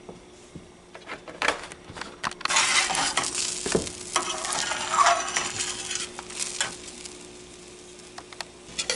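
Metal spatula scraping and clicking against a stainless steel skillet while beaten eggs sizzle as they cook. The scraping and sizzling are loudest from about two and a half to six seconds in, then settle to a quieter steady sizzle.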